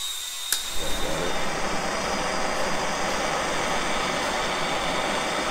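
A click about half a second in, then a small handheld gas torch burning with a steady hiss as solder is heated onto a throttle cable end.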